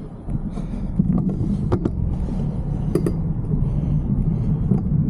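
A car engine running close by, heard as a steady low hum, with a few sharp clicks over it.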